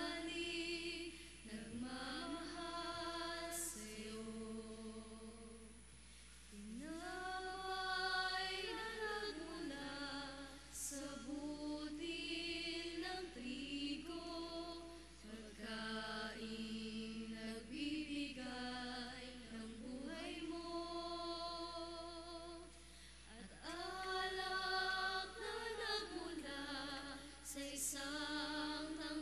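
Church choir singing a slow offertory hymn in long held phrases with short breaks between them, over a steady low electrical hum.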